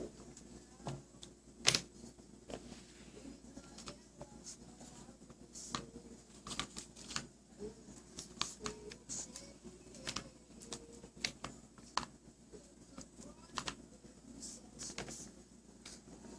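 Light, irregular clicks and taps as a baby handles and eats food, with a few faint, soft vocal sounds from the baby.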